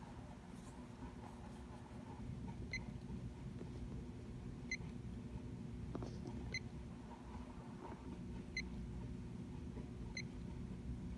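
Five short high beeps from a Kill A Watt EZ power meter as its buttons are pressed, roughly every two seconds. Under them a steady low hum, typical of a magnetic HX autotransformer ballast powering two high pressure sodium lamps in series.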